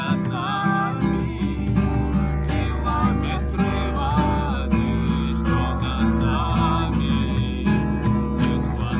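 Acoustic guitar strumming chords, with a low, steady didgeridoo drone entering about a second in.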